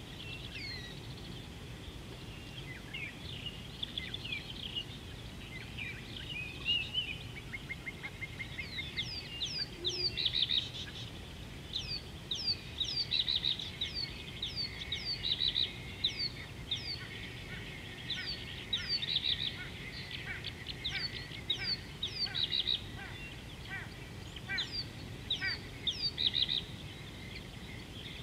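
Birds calling: many short, sharp chirps that slide downward in pitch, repeated over and over from several birds, with a quick even trill about seven seconds in. Under them runs a steady low background rumble.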